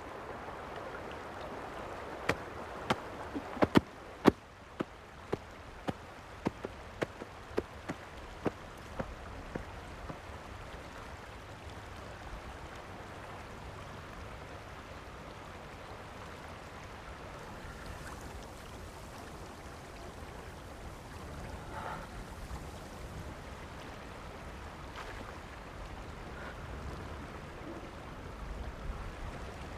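Wooden laundry paddle beating wet clothes on a stone: a run of sharp knocks, about two a second, that stops about ten seconds in. Under it runs the steady rush of a shallow stream.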